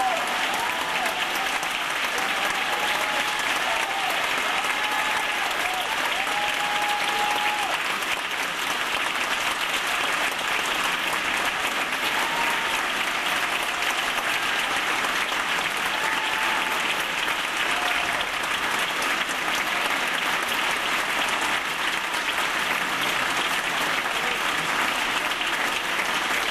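An audience applauding steadily and without a break, with a few cheers rising over the clapping, mostly in the first several seconds.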